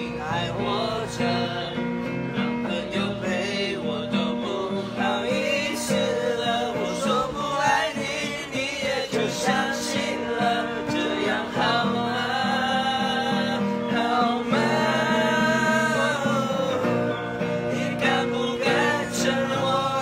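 Acoustic guitar strummed as accompaniment to a group of voices singing a pop song together.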